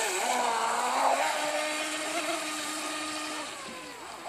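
Electric motor of a small RC speedboat whining at speed on the water, steady in pitch after a slight rise in the first second, fading as the boat pulls away near the end.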